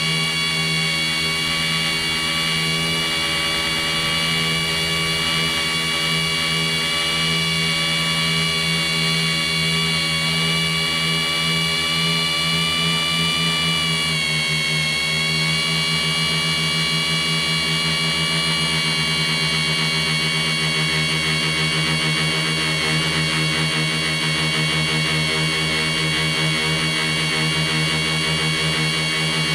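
Tricopter's three electric motors and propellers whining steadily, heard from the camera mounted on the craft. A little under halfway through, the whine dips in pitch and then climbs back.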